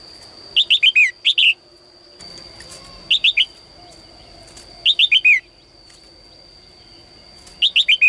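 A caged female red-whiskered bulbul singing in short phrases of quick, falling chirpy notes, four phrases about two seconds apart, over a steady high-pitched whine.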